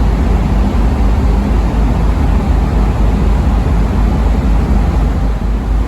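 Steady, loud low rumble of a vehicle engine, with running noise, heard from on board.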